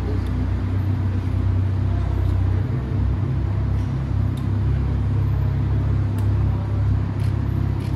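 A car engine idling with a steady low rumble, the beat wavering a little, and a few faint clicks over it.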